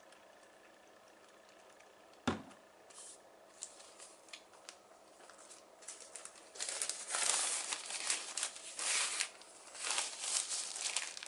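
Thin disposable plastic gloves crinkling and rustling loudly in irregular bursts as they are unfolded and handled, from a little past the middle onward. Earlier, about two seconds in, a single sharp knock, the plastic pump bottle set down on the wooden desk, followed by a few light clicks.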